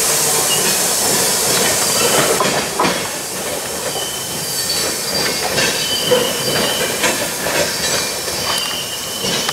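The last covered hopper cars of a freight train rolling past and away on the rails: steel wheels clicking over the track with thin high squeals. A loud rushing hiss drops off about two and a half seconds in as the end of the train goes by.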